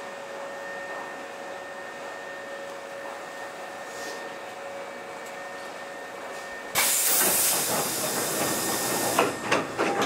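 Hankyu 7300 series electric train's low steady hum with a few faint steady tones. About seven seconds in, a loud burst of compressed air hisses for a couple of seconds and then cuts off with a few knocks.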